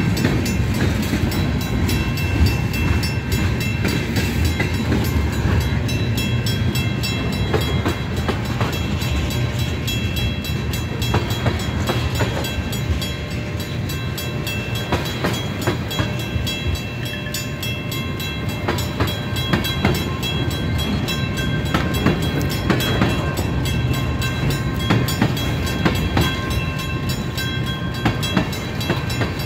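Freight train of boxcars and tank cars rolling past close by: a steady low rumble of steel wheels on rail, with irregular clacks and knocks as the wheels cross rail joints and a thin, steady high-pitched ringing over it.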